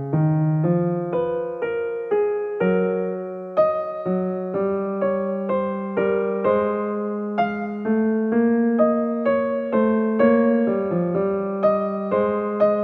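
Background music: a gentle piano piece, notes struck one after another in a slow steady rhythm.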